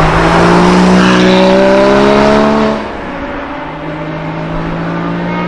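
Porsche Cayman GT4's flat-six engine accelerating hard, its revs rising steadily for nearly three seconds. The revs and volume then drop sharply, and it runs on more quietly as the car pulls away.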